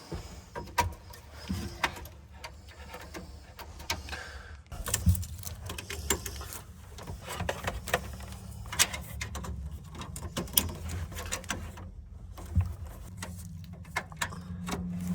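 Scattered light clicks and knocks of hands working on computer hardware, fitting a solid state drive into a desktop computer's drive bay.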